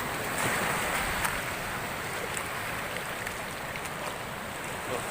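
Storm-driven sea surf: a steady rush of waves and washing water, a little stronger in the first second or so.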